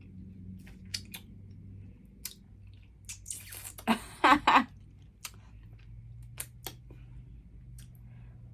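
Close-miked chewing of chicken wings, with wet mouth clicks and smacks scattered through. About four seconds in, a breathy exhale and a few short voiced sounds from the eater's throat are the loudest part.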